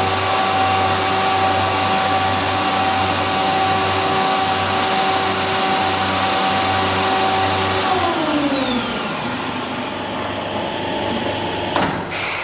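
Weinig P 22 N four-side planer running with a steady whine and hum from its spinning cutter spindles and motors. About two-thirds of the way through, the pitch falls steadily as the machine is switched off and spins down, and a sharp knock comes near the end.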